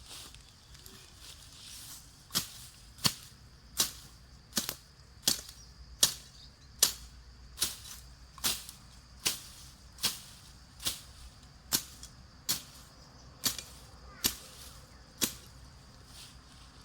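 A regular series of sharp strikes, about seventeen, roughly one every three-quarters of a second. They start about two seconds in and stop shortly before the end, over a steady high hiss.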